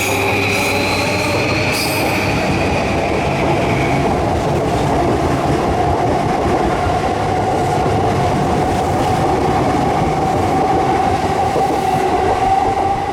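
Electric commuter train running through the station platform: a steady rumble of wheels on rail with a motor whine. A higher tone fades out about four seconds in.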